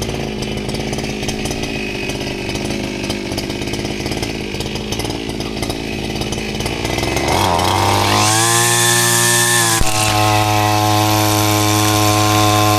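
Small gasoline engine idling, then revved up to full throttle about seven seconds in and held there at a steady high pitch.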